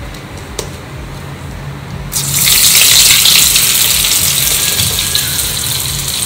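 Vada batter dropped into hot oil about two seconds in, setting off loud, steady sizzling and bubbling of deep-frying.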